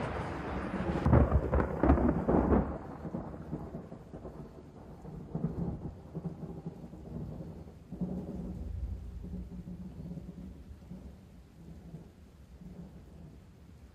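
Thunder rolling: a loud rumble in the first two to three seconds, then fainter rolls about five and eight seconds in, dying away.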